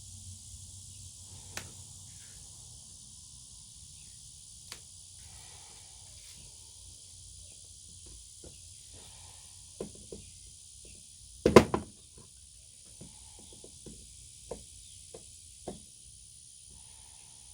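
Scattered light clicks and taps from a picture frame being handled and assembled, with one louder knock about eleven seconds in. A steady high hiss runs underneath.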